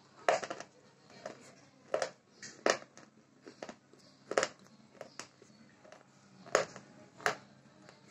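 Crunching of a broken KitKat wafer bar being chewed with the mouth closed, close to a clip-on microphone: irregular sharp crunches about every second, a few much louder than the rest.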